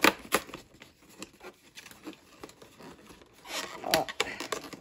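Fingernails clicking and picking at a cardboard advent-calendar door, then the perforated cardboard tearing as the door is pulled open, about three and a half seconds in.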